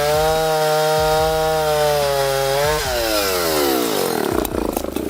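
Chainsaw held at high revs with a steady pitch, which falls away from about three seconds in and turns into a rougher, rattling sound near the end.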